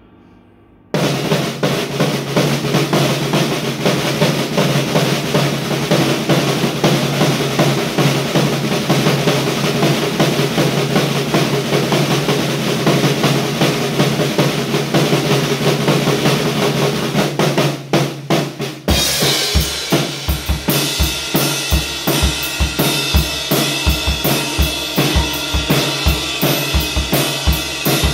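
Acoustic drum kit played hard: after a second of faint ringing, a dense, continuous roll of drums and cymbals starts suddenly, and near 19 seconds it changes to a steady beat with distinct kick drum strokes.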